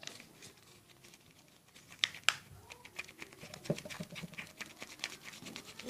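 Soft clay slime being stirred with added water: a run of small sticky clicks and pops that grows denser partway through, with two sharper clicks about two seconds in.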